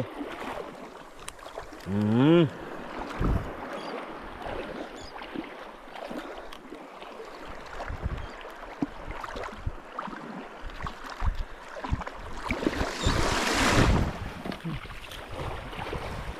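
Seaside wind and surf, a steady rushing noise with a louder rush about 13 seconds in. A man's voice gives a brief rising call about two seconds in.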